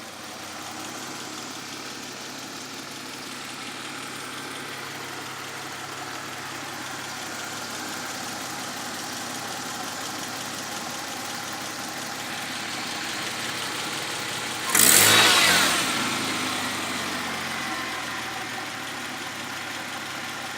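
Nissan RB20E straight-six engine running at idle with a knock that the owner cannot place. About fifteen seconds in there is a short, much louder burst that fades back to the steady running over a couple of seconds.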